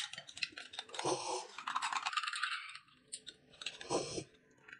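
Eating sounds: rapid clicks and scraping of spoons against glass cups, followed by slurping as the drink is sipped from the cups near the end.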